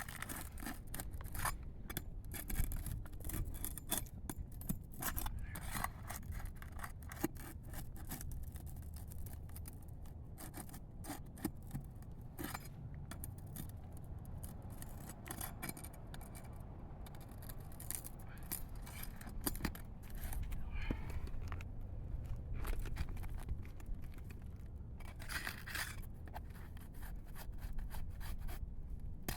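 Repeated scraping and sharp clicks of a metal tool prying under asphalt roof shingles, breaking the sealant strips and working loose the nails.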